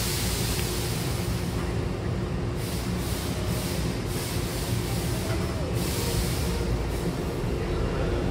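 A Hankyu commuter train standing at the platform with its doors open: a steady low hum and rumble from its onboard equipment, with a few spells of hiss.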